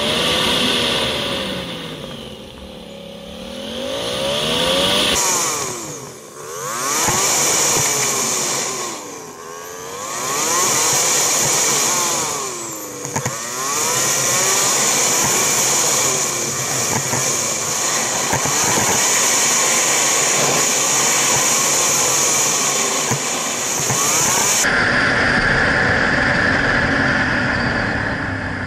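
Suzuki SV650 V-twin engine revving up and easing off again and again as the motorcycle accelerates out of and slows into tight bends, with wind hiss on the microphone. The sound changes abruptly about 5 s in and again about 24 s in.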